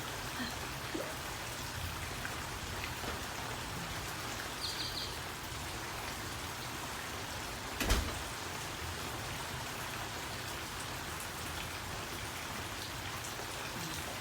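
Heavy rain pouring steadily, with a single sharp knock about eight seconds in.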